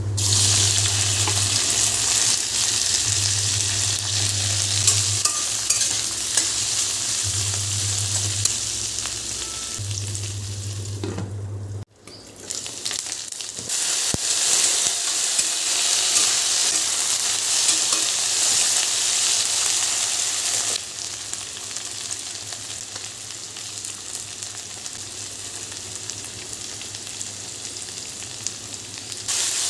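Food frying in hot oil in a pan, sizzling steadily while it is stirred. The sizzle breaks off about twelve seconds in, starts again, and is quieter for the last third.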